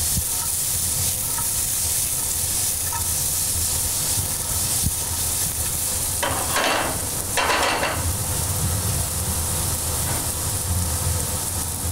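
Sliced carrots sizzling in olive oil in a frying pan while being stirred with a spatula: a steady frying hiss that grows louder twice, about six and seven and a half seconds in.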